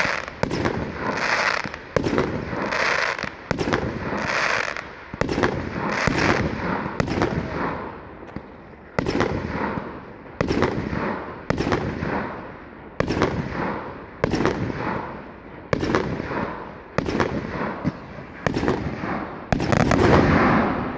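Aerial firework shells bursting in quick succession, a sharp bang about every second, each trailing off in crackle and echo. The loudest and longest burst comes near the end.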